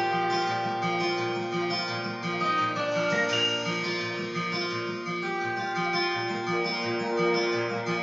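Instrumental introduction of a song, led by acoustic guitar: plucked and strummed chords with notes held and changing every second or so, and no singing yet.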